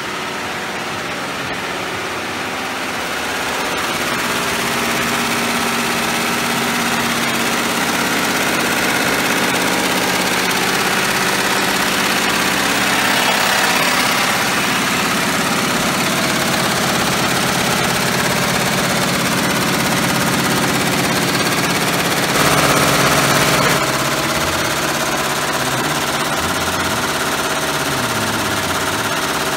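Workshop machinery running steadily, including a row of multi-head embroidery machines stitching at speed: a continuous mechanical hum and clatter with several steady tones. The sound grows louder for a couple of seconds about three-quarters of the way through, then settles into a slightly different pattern.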